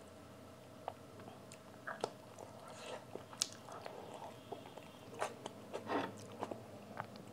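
Close-miked eating sounds: a person chewing a mouthful of food with the mouth closed, with scattered short, wet clicks and smacks of the lips and tongue.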